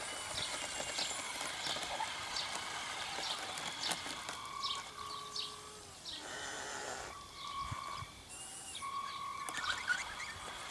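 Small birds chirping repeatedly. In the middle, several short steady whines start and stop from the radio-controlled tracked loader's drive motors as it moves.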